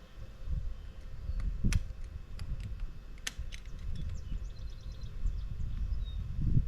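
Small metallic clicks and tool handling on a piston while its wrist-pin circlips are picked out, a few sharp ticks over a low rumble of handling noise.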